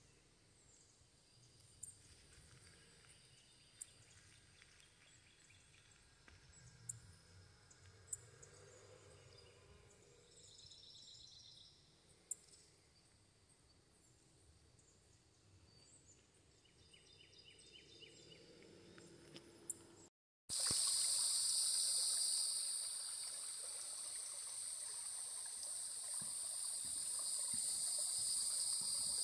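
Quiet woodland ambience with faint bird calls and a few sharp clicks. Then, about two-thirds in, a much louder insect chorus starts: a steady high-pitched drone in several bands that runs to the end.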